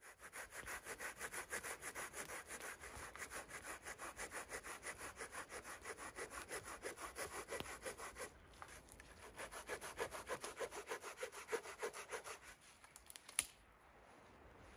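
Hand saw cutting through a dry wooden pole in steady back-and-forth strokes, about three a second, with a short pause partway through. A sharp knock comes near the end, after the sawing stops.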